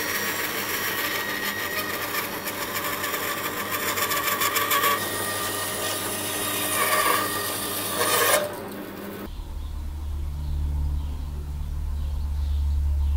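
A drill boring a large Forstner bit into a timber table leg: a dense, grinding cut over a steady motor whine. About nine seconds in the cutting stops and a steady low hum takes over.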